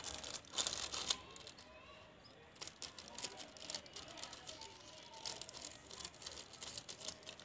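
A plastic snack packet crinkling in the hands while scissors cut it open, as a run of irregular crackles and snips. The sharpest crackles come in the first second or so.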